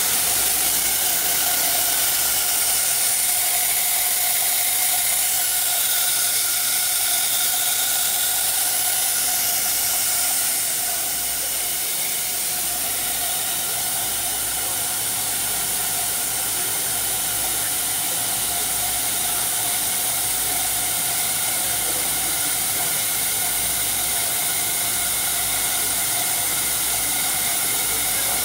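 Five-axis CNC router running as its head moves over the table: a steady hiss with a steady whine of several even tones, dropping a little in level about ten seconds in.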